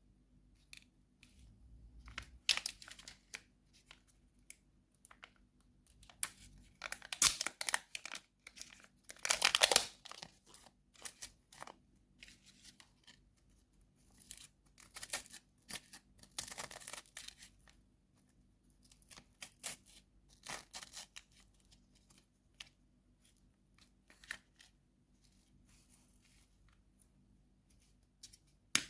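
Candy and chocolate wrappers being torn open and crinkled by hand, in irregular crackly bursts with a few louder stretches.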